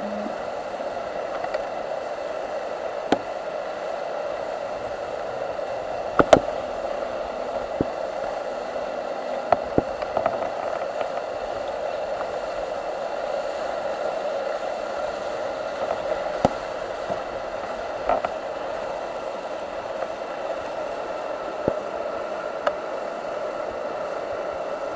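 Whitewater rapid rushing steadily, with a few brief sharp knocks scattered through, the loudest about six seconds in.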